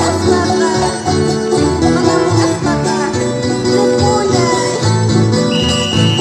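Bolivian fandango music from Nor Cinti, with guitars strummed and plucked in a lively dance rhythm and voices singing along. A high, steady note comes in near the end.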